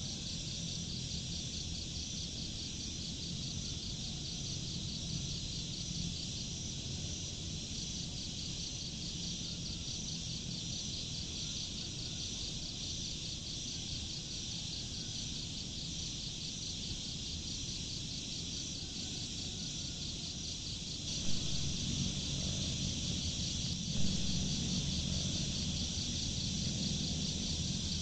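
Steady chorus of chirping insects with a fine, fast pulse, over a low outdoor rumble. About three-quarters of the way through, the low rumble swells and two brief soft thumps are heard.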